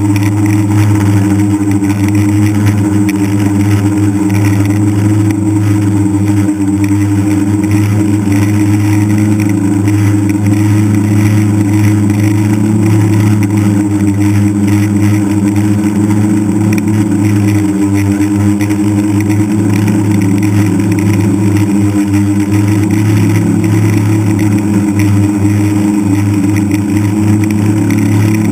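DJI F550 Flame Wheel hexacopter's six electric motors and propellers humming steadily in flight, heard close up from the onboard camera, with small shifts in pitch as the throttle changes.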